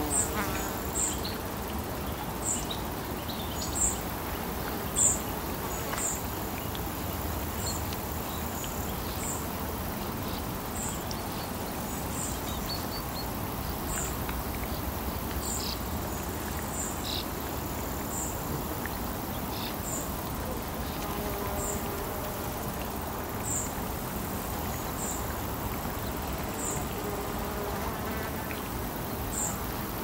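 Lakeside morning ambience: a short, high chirp repeats about once a second over a steady low rumble of distant traffic, with a few fainter bird calls. A few chirps in the first five seconds are louder.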